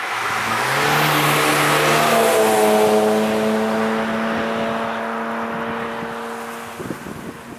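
Cars at track speed passing close by. The engine and tyre noise builds to a peak a second or two in, the note drops as they go past, and then a steady engine hum fades away over the next few seconds.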